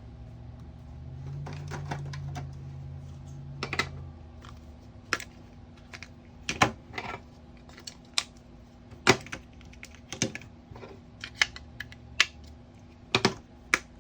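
Irregular sharp taps, a dozen or more, on a Snap Circuits board, meant to trigger its sound-activated integrated circuit's machine-gun sound effect. A low hum runs under the first few seconds.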